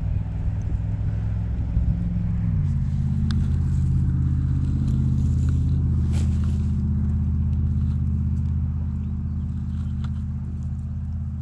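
A motor vehicle's engine running with a low, steady drone that shifts pitch about two and a half seconds in, then holds.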